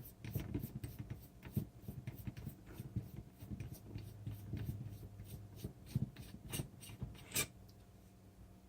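Bottom bracket tool unthreading a bicycle bottom bracket cup: irregular small clicks and metal rubbing, with one sharper click near the end.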